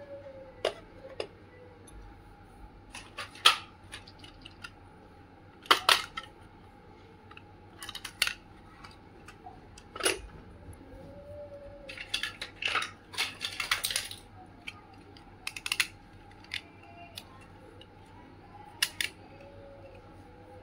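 Miniature plastic and steel toy kitchen pieces being handled and set down on a tabletop: scattered sharp clicks and taps, with a quick run of them about two-thirds of the way through.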